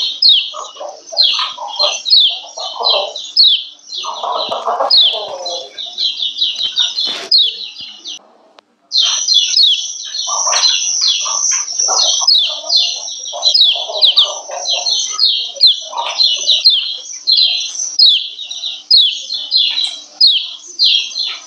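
Female kecial kuning (yellow white-eye) giving its rapid 'ciak ciak' call: a fast, continuous string of short, high, downward-slurred chirps, the call keepers play to stir male white-eyes into song. It breaks off briefly for under a second a little before the middle, then resumes.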